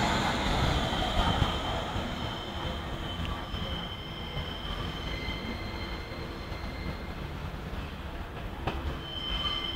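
A class 485 S-Bahn electric train pulls away: its wheels rumble loudly as the last car passes, then fade as it runs off down the track. From about three seconds in, a high, thin wheel squeal comes and goes.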